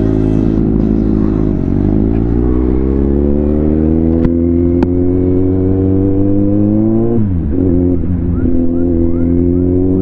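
Kawasaki Z800's four-cylinder engine pulling hard under acceleration, its pitch climbing steadily through the gears. The pitch drops sharply at gear changes about two seconds in and again about seven seconds in, then climbs again.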